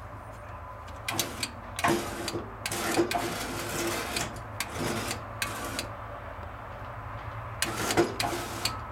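Car power-window motors driving a snow thrower's discharge chute, whirring in a string of short runs as the control switches are flipped on and off, with switch clicks; the motors run from about a second in to about six seconds, and once more near the end.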